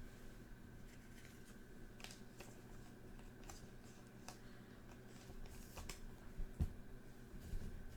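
Soft, scattered clicks and rustles of trading cards being handled and flipped through, over a faint steady hum.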